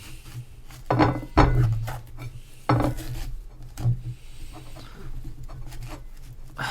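Knife peeling and cutting a Korean pear: scraping of the blade through the skin and flesh, with a few sharp knocks of the knife and fruit against the dish.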